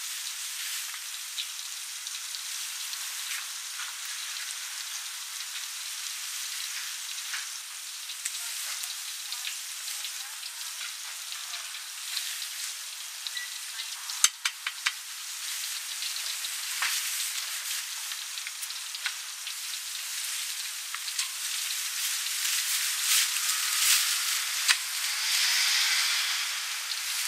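Battered duck pieces deep-frying in hot oil: a steady sizzle full of crackling pops, with a quick cluster of sharp pops about halfway through, growing louder toward the end.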